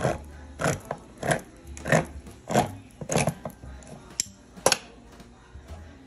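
Manual hand-crank can opener being turned around the rim of a metal can, a crunching cut on each turn of the key about every two-thirds of a second, followed by two sharper clicks near the end.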